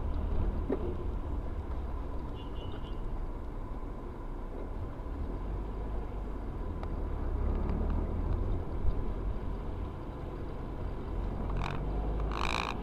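Road and engine noise inside a moving car, picked up by a dashcam while driving on a highway: a steady low rumble. Two brief higher-pitched sounds come near the end.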